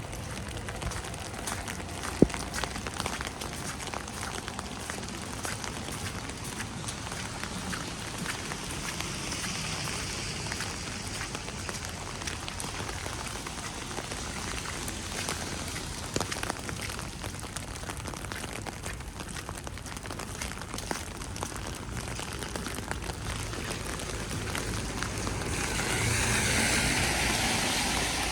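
Falling wet snow pattering steadily, a constant haze of small ticks. A single sharp click sounds about two seconds in, and a louder swell of hiss builds near the end.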